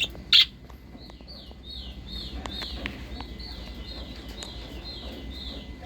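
Budgerigars chirping: a steady run of short, falling chirps, about three a second, after one loud, sharp call just under half a second in.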